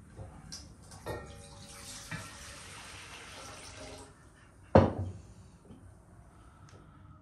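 Water poured from a clay jug into an enamel bowl, splashing steadily for about three seconds. About halfway through comes a single loud knock as the clay jug is set down on the wooden worktop.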